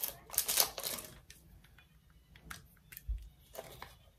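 Scattered light plastic clicks and taps from handling a small 29-gauge insulin syringe, with a soft low thump about three seconds in.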